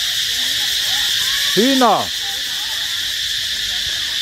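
Steady, high-pitched chorus of crickets.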